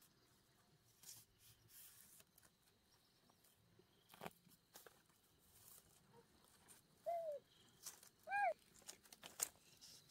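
Light clicks and knocks of split bamboo strips being handled and laid across each other. Two short high-pitched calls come in the last third, the second louder and the loudest sound.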